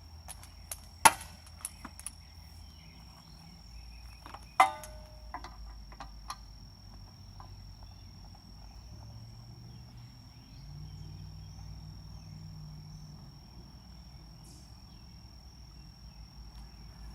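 Handling of a pressure washer's hose and fittings: a few sharp clicks and knocks, the loudest about a second in and another a few seconds later with a brief metallic ring, then scattered light ticks.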